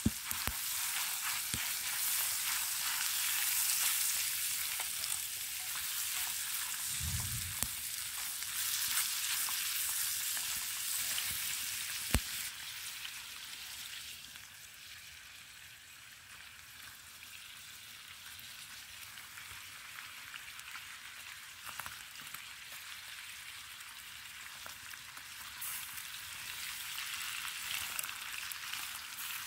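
Meat frying in fat in a small steel camping pan over a wood-fire stove: a steady sizzle, loud at first, dropping away after a sharp click about twelve seconds in, and building again near the end.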